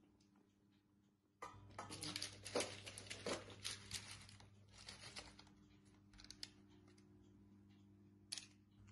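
Baking paper crinkling and rustling under hands spreading vegetable pieces across a lined baking tray. It starts about a second and a half in, is busiest for the next few seconds, then thins to faint scattered crackles.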